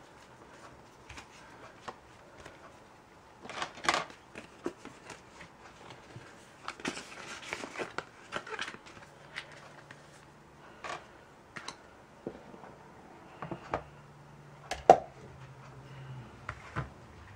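Quiet room with scattered small clicks and taps and brief rustling, the loudest tap about three-quarters of the way through; a faint low hum comes and goes in the second half.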